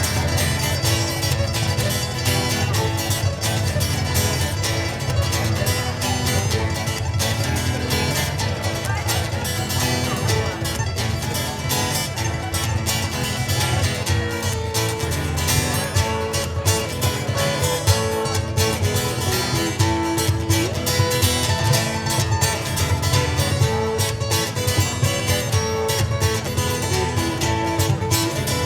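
Ukulele and acoustic guitar playing an instrumental piece together, with plucked notes running without a break.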